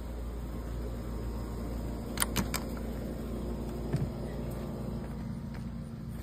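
A steady low mechanical hum, with three quick sharp clicks a little after two seconds in and a softer click about four seconds in, as a screen door is opened and passed through.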